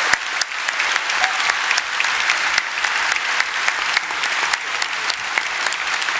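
A large audience applauding, many hands clapping steadily throughout.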